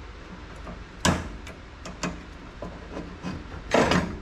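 Clicks and knocks of metal parts being handled and fitted by hand under a car, with a sharp clack about a second in and a short, louder rasp near the end.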